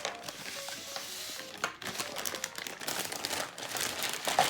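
Plastic packaging crinkling, with light clicks of small plastic toy-kit pieces being handled and sorted.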